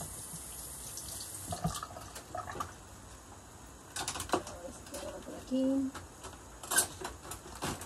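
Kitchen handling noises: a faint watery hiss at the start, then scattered sharp clicks and knocks, with a loud one about 4 seconds in and another near the end.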